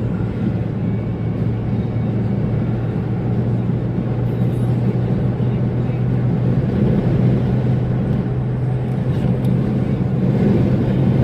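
Car driving at highway speed, heard from inside the cabin: a steady drone of engine and tyre noise with a constant low hum, growing a little louder near the end.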